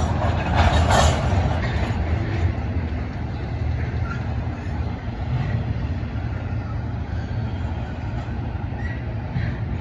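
Union Pacific double-stack intermodal freight train rolling across a railroad overpass: a steady low rumble of the passing cars, louder about a second in, with a few faint brief squeals.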